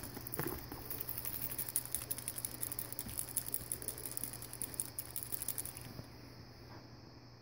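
Guinea pig drinking from a hanging water bottle: a fast, continuous patter of small clicks as it licks the metal spout, stopping about six seconds in.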